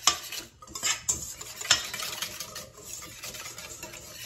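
A wire whisk beats a creamy cheese sauce in a stainless steel bowl. The wires scrape and click against the metal in quick strokes, with a few louder clinks in the first two seconds.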